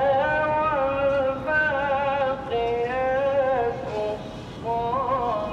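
A solo voice singing long, held notes that waver and slide between pitches in an ornamented style, with a short pause about four seconds in.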